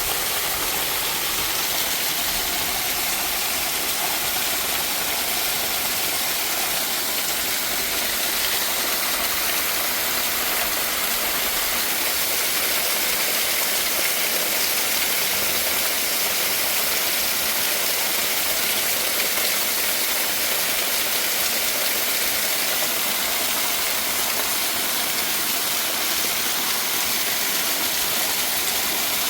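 Mountain waterfall rushing: a steady, unbroken hiss of falling water.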